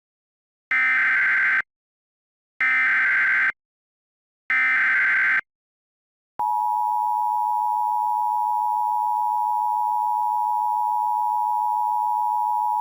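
Emergency Alert System tones: three short bursts of SAME header data tones, each just under a second long with short gaps between them, then from about six seconds in the steady two-tone attention signal, a constant harsh dual-pitch tone.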